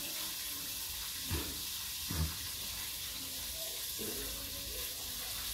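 Corn kernels frying in a covered wok on a gas stove, a steady sizzling hiss, before the popping starts. Two short dull thumps sound about one and two seconds in.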